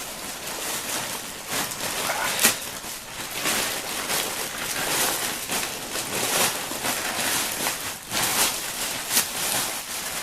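Plastic parcel packaging being torn open and handled: continuous crinkling and rustling with sharp crackles and rips, the loudest a little over two seconds in.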